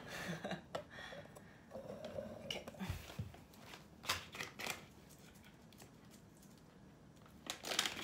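Plastic pouch of oats rustling and crinkling in the hands, with scattered clicks and one low thump about three seconds in. It goes quieter for the last few seconds.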